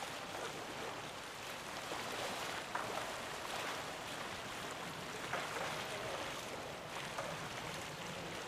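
Steady harbour ambience: an even wash of wind and water noise with no distinct event standing out.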